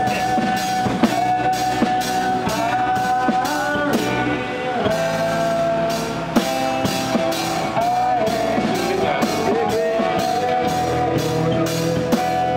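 Live acoustic band: two acoustic guitars strumming chords over a steady beat from drumsticks on a small percussion set with cymbals, with a held melody line that bends in pitch.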